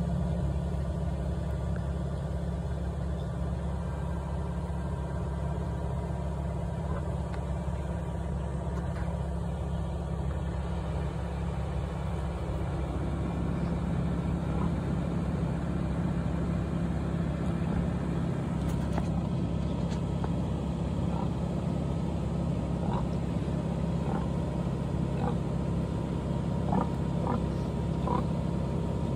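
A machine engine idling, a steady low hum throughout. A few short, faint squeaks from piglets come in the second half.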